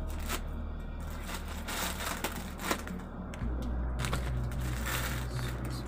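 Black plastic courier pouch crinkling and rustling as it is cut open with scissors and handled, a dense run of irregular crackles.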